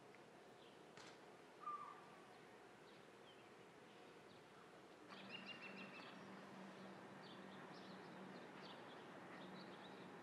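Near silence: faint outdoor ambience with a few short bird chirps, the clearest about two seconds in. A low steady hum comes in about halfway through.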